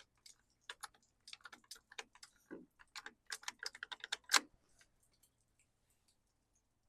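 Irregular light clicks and taps of small parts being handled, loudest about four seconds in, then thinning to a few faint ticks.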